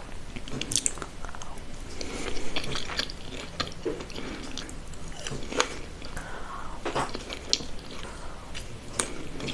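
A person biting and chewing food, with irregular sharp crunches and clicks several times a second.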